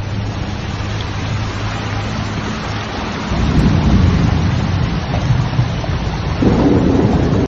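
Torrential rain pouring down, heard from inside a car: a dense, steady hiss, with a low hum in the first few seconds and heavier deep rumbling about halfway through and again near the end.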